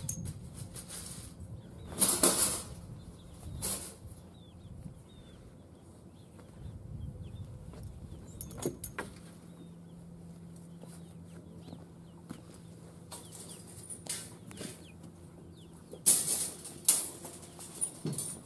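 Chickens clucking in the background, with several loud rattles and clanks of wire live-trap cages as they are handled, the loudest about two seconds in and again near the end.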